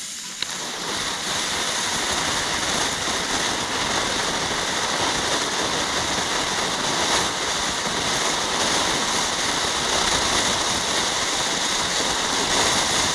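A ground fountain firework spraying sparks, giving a steady hiss that builds up within the first second after a faint click.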